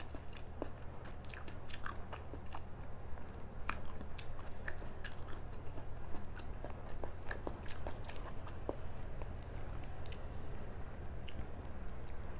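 Close-miked chewing of a mouthful of food: many small, wet mouth clicks and crackles at an irregular pace. Under it runs a steady low hum.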